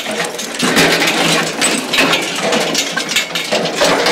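Horse-drawn bracken roller rattling and clanking as a heavy horse tows it along a dirt track, with a steady run of metallic clicks and clinks.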